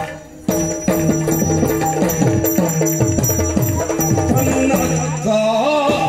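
Yakshagana accompaniment music: repeated pitched drum strokes that slide down in pitch, over steady high ringing metal, with a short lull about half a second in. Near the end a wavering melody line comes in.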